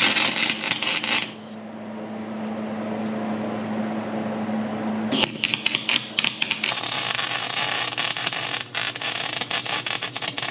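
Electric arc welding on steel tubing: the arc crackles and sizzles for about a second, a steady hum follows, then a longer run of crackling starts about five seconds in.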